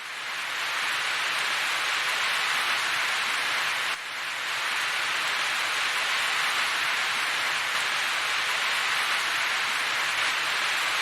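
Steady hiss of falling or running water, fading in at the start, with a brief dip about four seconds in, and cutting off suddenly at the end.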